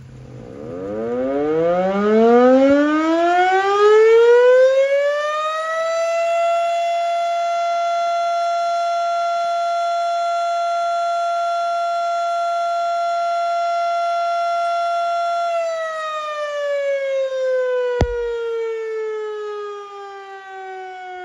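Erick mechanical fire siren sounding its noon test blast. It winds up slowly over about six seconds to a steady tone, holds for about ten seconds, then winds down with falling pitch. A single sharp click comes near the end.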